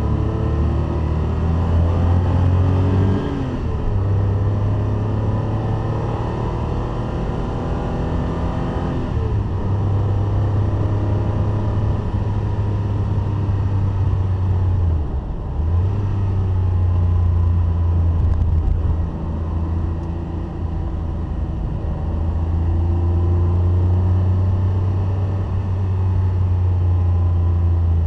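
A classic Porsche 911's air-cooled flat-six engine is driven hard on track, heard from inside the cabin. It makes a loud, steady drone, with the revs climbing and then dipping at gear changes or lifts, most clearly about 3, 9 and 15 seconds in.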